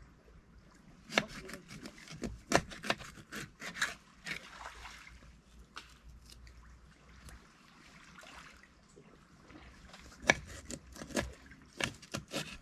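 Kitchen knife cutting a barracuda into steaks on a cutting board: two bursts of sharp knocks and cracks as the blade chops through the fish and strikes the board, the first starting about a second in, the second near the end.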